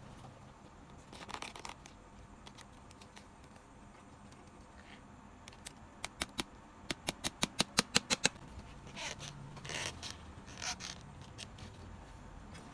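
Hand tools working a leather sandal strap on a shoe last: soft scraping and rubbing of leather, with a quick run of about a dozen sharp taps, roughly five a second, about six seconds in.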